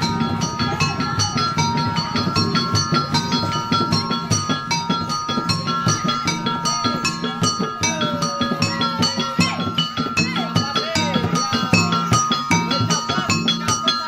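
Live traditional South Kalimantan tuping burung music: a drum beaten in a fast, dense rhythm under ringing struck metal gongs and percussion that hold steady tones.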